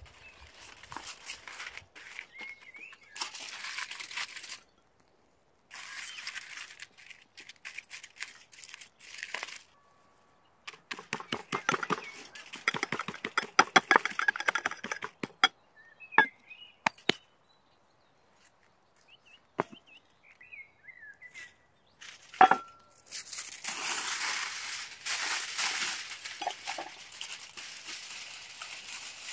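Aluminium foil crinkling and rustling in bursts as hands open and fold foil packets, with a few sharp clicks and knocks. Near the end comes a longer, louder run of crinkling as a sheet of foil is pulled from a roll and torn off.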